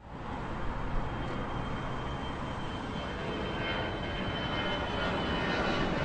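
Steady rumbling vehicle noise with a thin high whine. It cuts in abruptly and slowly grows louder.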